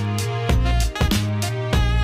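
Background music with a steady drum beat over a bass line and held notes.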